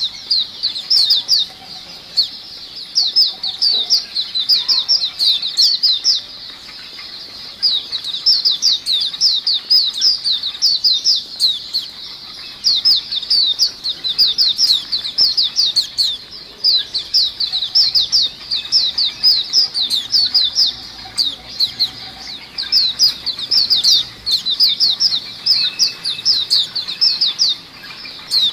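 A group of white-eyes (pleci) chattering together: fast runs of high, thin, downward-slurred chirps in bursts, broken by short pauses every few seconds.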